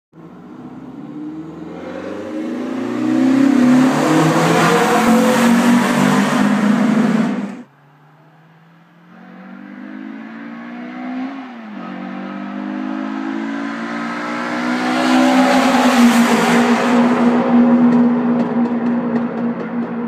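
Renault Clio 182's 2.0-litre four-cylinder engine accelerating hard through the gears, its pitch climbing in steps, with loud intake noise from an open cone-filter induction kit. The sound breaks off sharply about seven and a half seconds in, returns a second or so later climbing through the gears again, peaks, and fades as the car pulls away.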